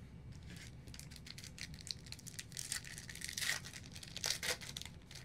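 Football trading cards and their pack wrapper being handled: a dense run of quick crinkling and rustling scrapes, loudest twice late on.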